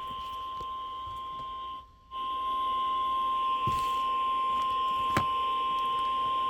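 NOAA Weather Radio 1050 Hz warning alarm tone: one steady, single-pitched tone over radio hiss, dropping out briefly about two seconds in, with a faint click near the end. It signals that a warning broadcast follows, here a severe thunderstorm warning.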